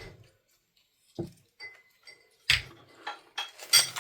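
A few short clicks and knocks from small items and packaging being handled, the loudest about two and a half seconds in, with some rustling near the end.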